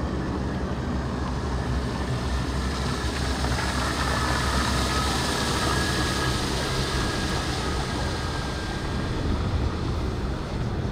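A boat running on open water: a steady low drone with rushing water and wind hiss. A high whine comes in about four seconds in and fades out near the end as the NV1 electric hydrofoil boat passes close alongside, its electric drive whining.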